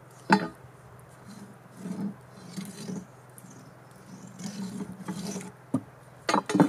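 Hand-sanding a wooden planter: several rough scraping strokes of abrasive on wood, taking one side down, with a sharp knock of wood near the start and a few more knocks near the end.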